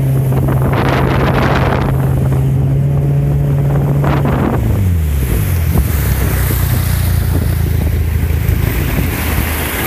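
Mercury jet-drive outboard on a jon boat running at speed, with water and wind rushing past. About halfway through, the engine note drops as the throttle is eased off, and it runs on at the lower pitch.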